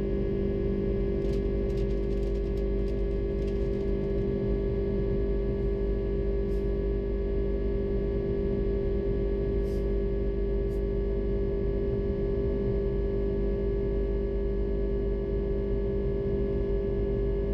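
Steady drone inside an Airbus A330-300 cabin: engine tones holding one pitch over a constant rushing noise, with a few faint clicks in the first few seconds.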